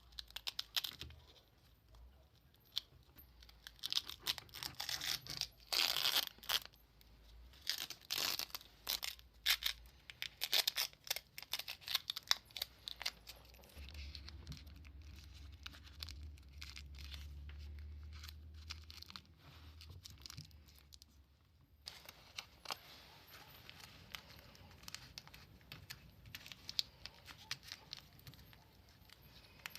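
Irregular bursts of scratching and tearing-like noise with sharp clicks from hand work on the grinder's parts. For several seconds in the middle a low steady hum runs underneath. Near the end the scratching turns fainter and finer.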